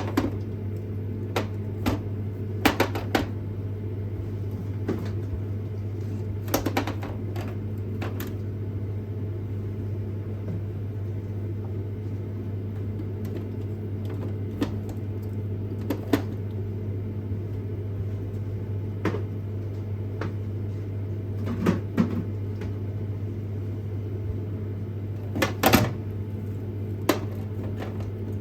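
A steady low mechanical hum with scattered short clicks and knocks, a few of them in quick clusters.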